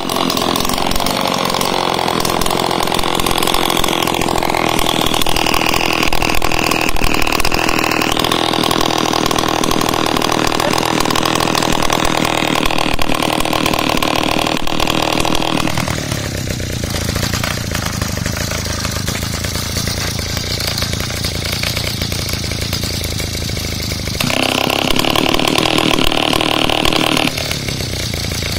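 Small air-cooled single-cylinder engine running without its muffler, a loud open-exhaust buzz. About halfway through it settles to a quieter, lower run, picks up again for a few seconds near the end, then drops back.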